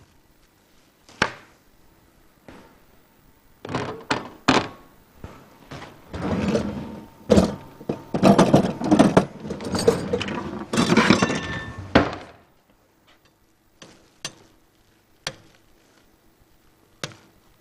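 Scattered sharp clicks and taps as a metal ring cutter is pressed through chicken kofta mixture on the counter. From about six to twelve seconds in comes a run of clattering and clinking of pots and pans at a gas stove, with some metal ringing, followed by a few more single clicks.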